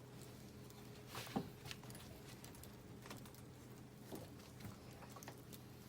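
Small pieces of scrap SPF wood catching in a newly lit campfire, giving faint, scattered clicks and crackles; the sharpest snap comes about a second and a half in. A steady low hum runs underneath.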